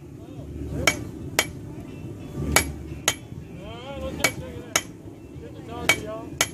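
Blacksmith's hammer striking hot steel on an anvil while forging an offset into a leaf. The blows come in four pairs, each pair about half a second apart, each strike a sharp ringing clang.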